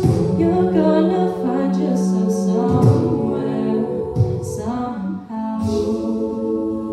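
Female a cappella group singing close-harmony chords under a lead vocal, with beatboxed kick thumps and hissing hi-hat sounds. About five and a half seconds in, the percussion stops and the voices hold one long sustained chord.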